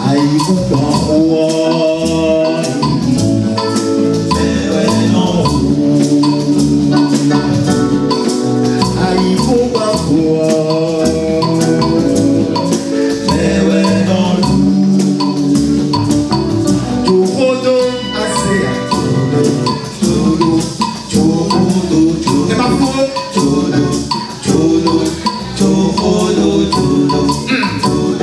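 Music with a fast, dense percussion rhythm under pitched melodic parts, steady and loud throughout.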